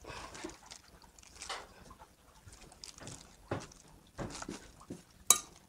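Thin plastic bag crinkling and a metal spoon scraping and tapping on a ceramic plate as fish paste is pressed flat into a patty, in short irregular bursts, with one sharp click near the end.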